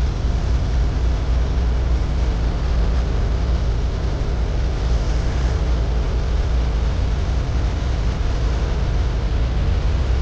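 Steady noisy roar of a brazing torch flame heating copper refrigerant piping, with a deep rumble underneath and no breaks.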